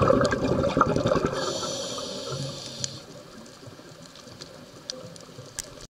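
Underwater bubbling and rushing of a scuba diver's exhaled bubbles, fading over the first two seconds or so. A brief high hiss follows, then a quieter background with scattered sharp clicks.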